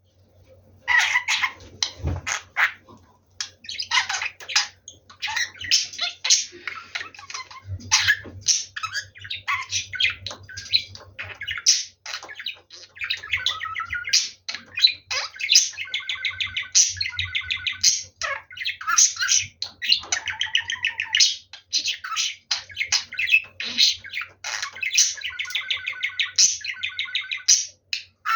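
Pet budgerigar warbling and chattering nonstop in rapid chirps and squawks, the continuous chatter of a talking budgie.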